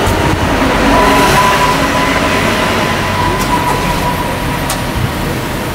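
Road traffic on a narrow street: cars driving past close by, a steady traffic rumble with a thin, steady whine running through most of it.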